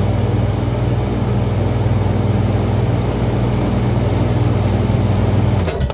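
Walk-in cooler condensing unit's refrigeration compressor running with a steady low hum while held on by its manually pushed-in contactor, pumping the system down into a vacuum. It shuts off abruptly near the end.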